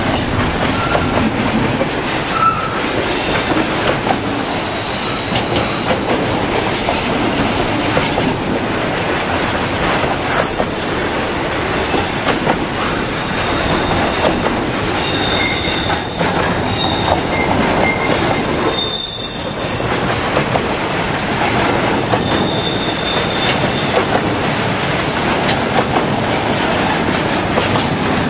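Freight train cars, double-stack container well cars and flatcars, rolling past close by: a steady loud noise of steel wheels running on the rails, with short high wheel squeals now and then in the second half.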